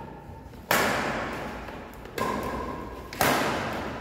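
Badminton rackets striking a shuttlecock in a rally: three sharp hits, about a second to a second and a half apart, each echoing in a large hall.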